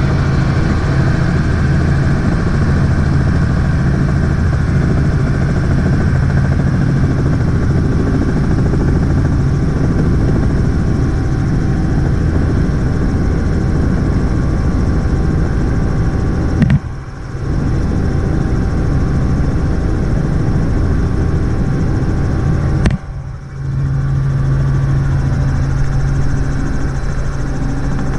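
Helicopter engine and rotor drone heard from inside the cabin during flight: a steady, loud drone with a strong low hum. It drops away briefly twice, in the last third.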